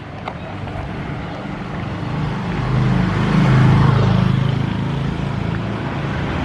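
Street traffic: a motor vehicle's engine running close by over a steady road-noise bed, swelling louder around the middle.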